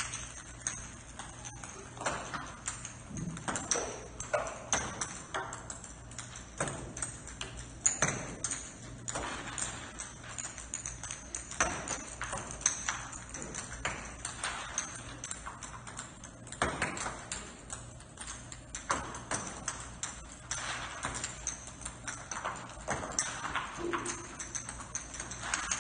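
Plastic golf balls being tossed and bouncing across a hard tiled floor: many irregular clicks and taps.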